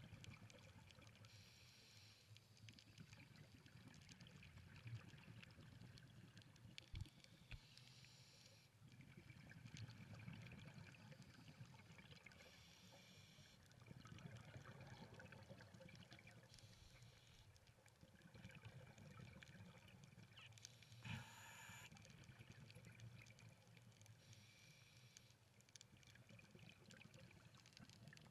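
Faint, muffled scuba breathing heard through an underwater camera housing: a short regulator inhale hiss, then a low rumble of exhaled bubbles, repeating about every five seconds.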